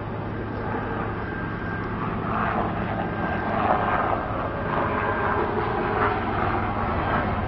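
Fire-fighting air tanker flying low overhead on a retardant drop, its engine noise growing louder from about two seconds in.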